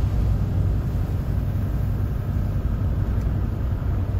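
Steady low rumble of a truck driving on wet beach sand, heard from inside the cab.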